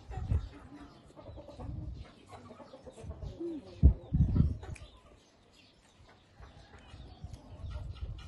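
Close-up eating sounds: biting into and chewing a raw round Thai eggplant, in irregular bursts of chewing and mouth sounds. A sharp thud about four seconds in is the loudest sound.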